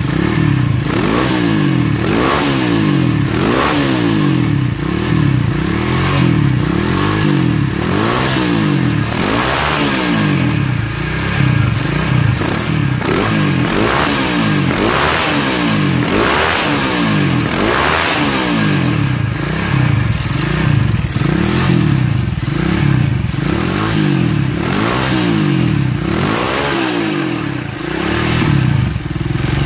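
Honda Megapro's single-cylinder four-stroke engine being revved again and again, the pitch rising and falling about once a second. Through it runs a light rattle, which comes from the front number plate vibrating.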